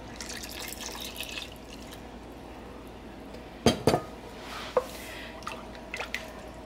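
Clam juice poured from a glass measuring cup into a pot of thick creamy chowder, a splashing pour for the first second and a half. About three and a half seconds in come two sharp knocks, the glass cup set down, then a wooden spoon stirring the thick chowder with soft wet sounds and small clicks against the pot.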